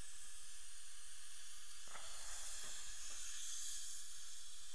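Steady hiss of a dental suction tip drawing air and rinse fluid from the mouth, growing brighter and airier about halfway through.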